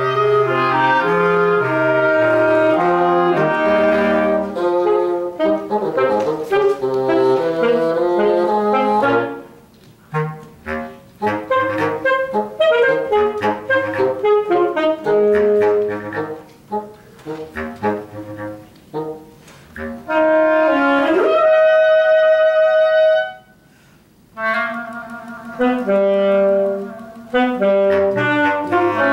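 Reed quintet of oboe, clarinet, saxophone, bass clarinet and bassoon playing a contemporary chamber piece. The full ensemble plays first, then thins to short detached notes after about nine seconds; about twenty-one seconds in, one instrument slides up into a long held high note, there is a brief break, and the ensemble comes back in.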